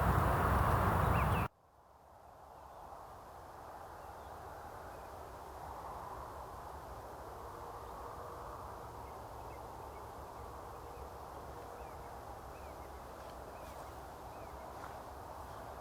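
A loud rushing noise cuts off abruptly about a second and a half in. Quiet rural outdoor ambience follows, with faint, scattered bird chirps in the distance.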